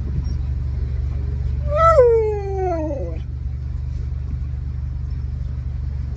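An Alaskan malamute gives one long vocal call about two seconds in, rising briefly and then sliding down in pitch, over the steady low rumble of a Mini convertible's engine idling.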